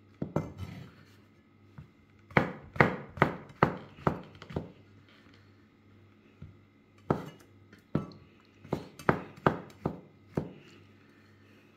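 Chef's knife slicing button mushrooms, the blade knocking on a wooden cutting board with each stroke. The strokes come in two runs of sharp knocks, about two a second, with a pause of a couple of seconds between them.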